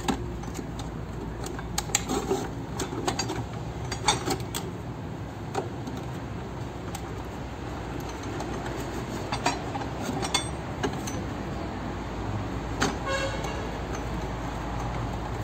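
Metal hand tools (screwdrivers, pliers, a hex key) clicking and clinking against each other and the plastic jug as they are slotted into its holders: scattered irregular clicks, one with a brief metallic ring near the end.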